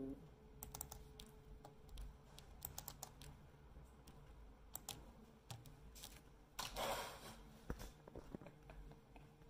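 Faint, irregular clicking of typing on a computer keyboard, over a faint steady hum. A brief, louder noise about seven seconds in.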